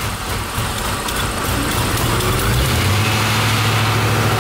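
1992 Chevrolet Corvette's LT1 small-block V8 running just after its first start on newly fitted shorty headers; its speed wavers and then settles into a steady idle about three seconds in.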